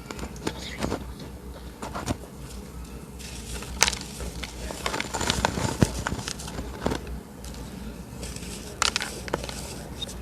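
Gym chalk being crushed, crumbling with irregular crackles and a few sharp snaps.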